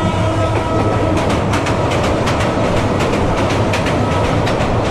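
Meter-gauge passenger train running at speed, heard from an open carriage door: a steady rumble and rush, with the wheels clacking rhythmically over the rail joints. A thin steady tone rings over it and fades out before the end.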